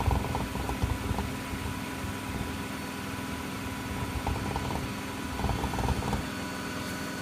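Miele W Classic WDA110 washing machine in its high-speed spin: a steady motor whine over a low drum rumble. The rumble swells in the first second and again about five to six seconds in, then settles.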